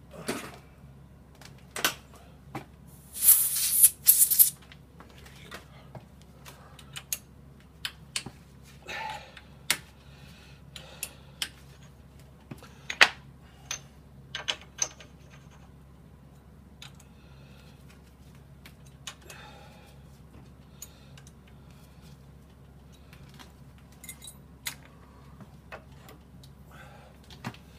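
Metal lathe tooling being handled: scattered clinks and clanks of steel tools and a tool holder being picked up and set down, with a loud rattling rush of noise about three seconds in. A steady low hum sits underneath.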